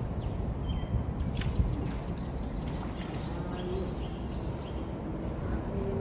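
Steady low outdoor background noise in the open air, with faint short bird chirps and a few light clicks, the sharpest about a second and a half in.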